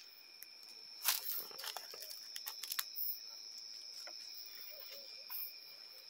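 Night insects trilling in a steady high, unbroken tone. Over it come crunching footsteps and crackling of dry leaves and twigs underfoot, sharpest about a second in, then a run of smaller crackles.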